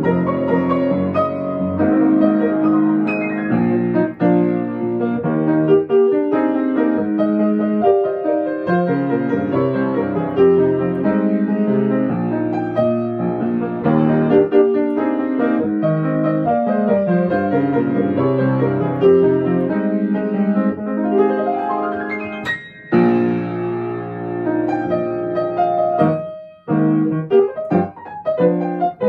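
Grand piano played solo in a dynamic, full-textured arrangement, both hands busy across the keyboard. About three-quarters of the way through, a sharp accented chord is followed by a brief break, and there is another short pause a few seconds later before the playing picks up again.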